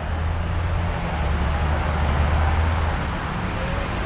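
Diesel railcar's engine idling while the railcar stands at the platform: a steady low hum with an even rumble over it.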